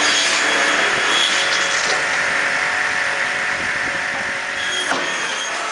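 Automatic cross-cut saw line for slab wood running: a steady mechanical din from its motors and conveyor, with faint whining tones and a single sharp click near the end.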